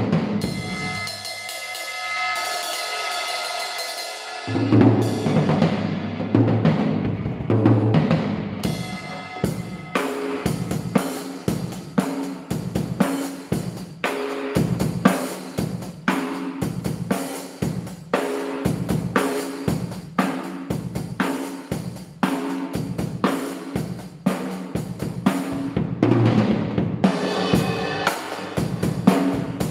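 Acoustic drum kit played with sticks, including a 12-inch drum freshly fitted with a Remo head. A cymbal crash rings for the first few seconds, then a steady beat of drums and cymbals follows, with another cymbal crash ringing near the end.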